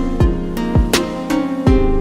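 Instrumental music: held chords with a steady beat of deep drum hits and sharper strikes, roughly two a second.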